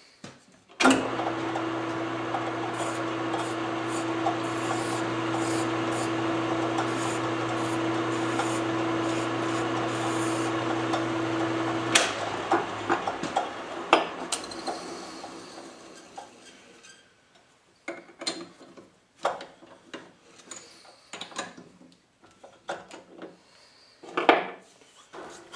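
Metal lathe starting about a second in and running with a steady hum while a hand file rasps against the spinning metal part to deburr it. About twelve seconds in the lathe is switched off with a click and spins down. Scattered clicks and knocks follow as the part is taken out of the four-jaw chuck.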